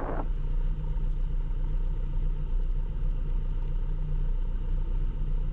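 Cessna 172 Skyhawk's engine running steadily at low power while taxiing, a constant low drone heard from inside the cockpit.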